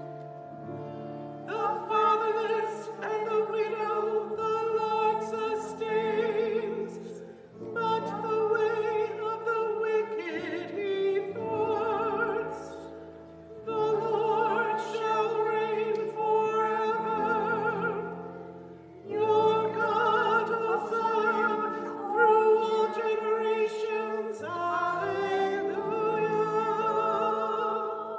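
A woman cantor singing the responsorial psalm with vibrato, in phrases a few seconds long, over instrumental accompaniment holding low notes.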